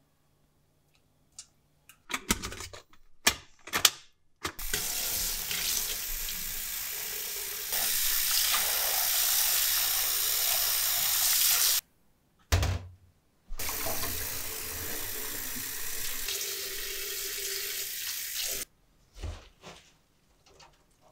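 Kitchen tap running into a sink in two long stretches, with a few clicks and knocks of handling before, between and after.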